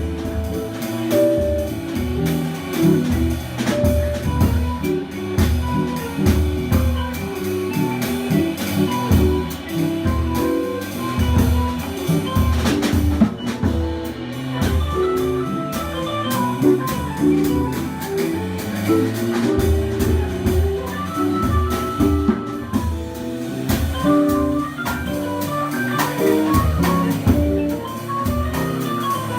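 Instrumental band music with drum kit and guitar: a steady beat under a moving melody line, with no singing.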